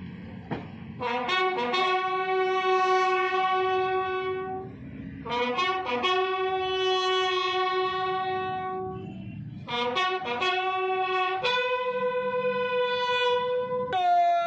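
A single bugle sounding a military ceremonial call. It plays long held notes, each led in by a few quick short notes, and steps up in pitch over the last few seconds.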